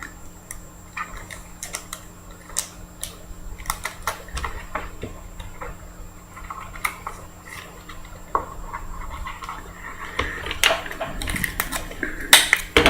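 Handling of trading cards and plastic card holders: scattered light clicks, taps and rustles. A faint steady hum runs underneath.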